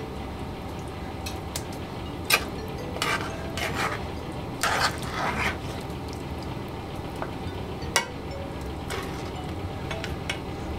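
Metal ladle stirring a thick stew in a metal pot, scraping and knocking against the pot's side. There are a few sharp clinks, the loudest about two seconds in and again near eight seconds, with a busier patch of scraping around the middle, over a steady low hum.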